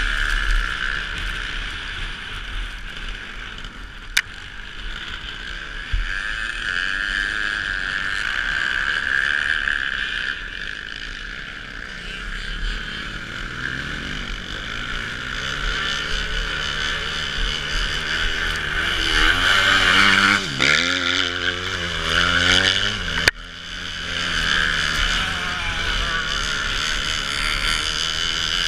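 Motocross motorcycle engine towing a skier, revving up and down and loudest about two-thirds of the way in, over a steady rushing of wind and skis on snow.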